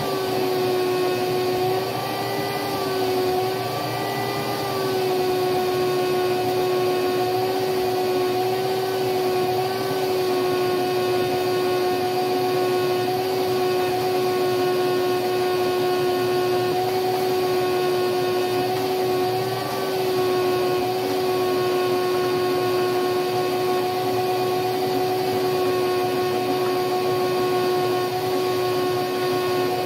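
Shop vacuum running steadily with a constant whine, its hose working over the coil springs of an old seat frame to pull out rotted burlap padding and dirt. The pitch wavers slightly during the first few seconds, then holds level.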